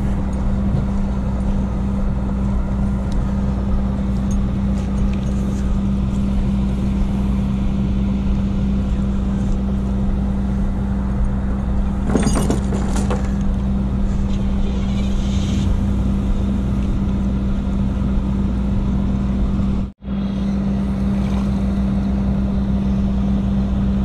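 A motor vehicle engine idling steadily, a constant low hum with no revving. A brief noisy rustle about twelve seconds in, and the sound drops out for an instant near twenty seconds.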